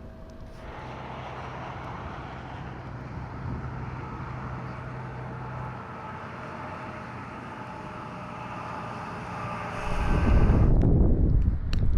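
Storm chasers' vehicle driving, its engine and tyre noise picking up under a second in and holding steady. About ten seconds in, a much louder, uneven low rumble takes over.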